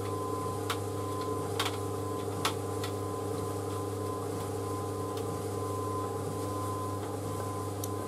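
White Knight C38AW compact reversing tumble dryer running, its drum turning a load of clothes: a steady motor hum with a faint whine, and a few light ticks in the first few seconds.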